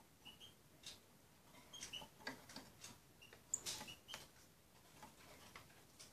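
Faint, irregular clicks and taps of a small bird's beak pecking at berries in a glass bowl, with a few short, high peeps in between.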